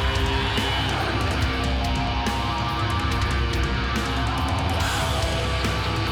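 Heavy metal music with distorted electric guitars and a steady bass.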